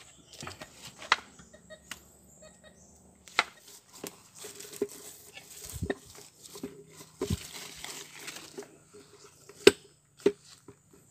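Irregular knocks, clicks and scrapes of handling and footsteps on stony ground, with a longer stretch of scraping in the middle and a faint tone breaking in and out in the second half.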